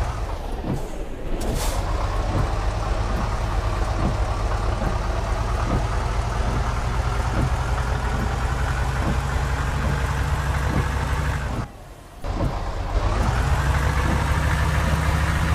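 Heavy bus diesel engine running and pulling away, its pitch slowly rising, then rising again after a brief dip in level near the end. A short hiss of air sounds about a second and a half in.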